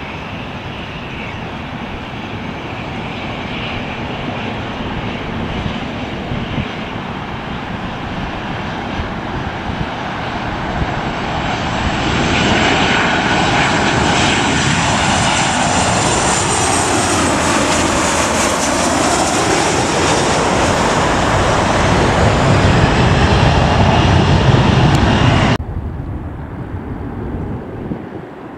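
Southwest Airlines Boeing 737's jet engines on landing approach, passing low overhead. The rumble grows louder, and at its loudest a high whine falls in pitch as the jet goes by. Near the end the sound drops suddenly to a fainter, more distant jet hum.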